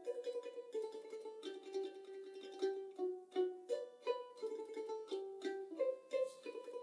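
Tamburica playing a solo melody of plucked notes.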